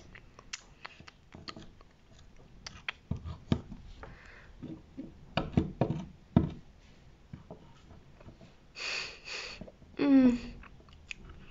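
Scattered light taps and clicks of a plastic toy horse figurine knocking against a toy hay bale and the tabletop as it is made to eat. About nine seconds in comes a breathy sniff, then a short vocal sound that falls in pitch.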